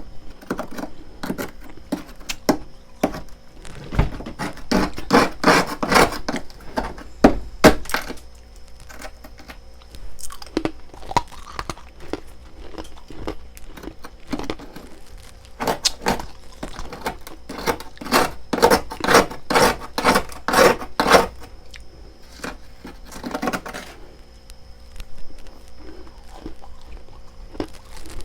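Frost ice being bitten and chewed close to the microphone: crisp crunches in rapid runs, two long heavy runs with lighter chewing between.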